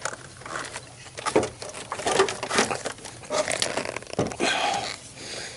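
Car battery being worked out of a tight engine bay: scattered knocks and scrapes of the battery case against the surrounding parts.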